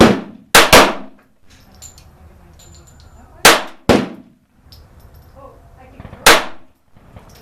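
Kel-Tec P17 .22LR semi-automatic pistol firing six sharp reports at an irregular pace: one at the start, a quick pair just after, another pair about three and a half seconds in, and a last one near the end.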